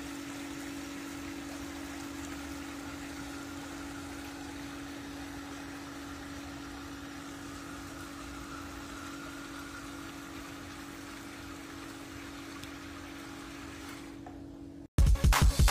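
Amphibious RC truck motoring across a swimming pool: a steady low hum with faint water churning. Loud music cuts in suddenly near the end.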